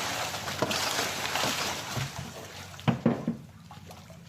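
Bubara (trevally) splashing and thrashing at a pond's surface as they scramble for thrown food. A few sharp knocks come about three seconds in, after which the splashing dies down.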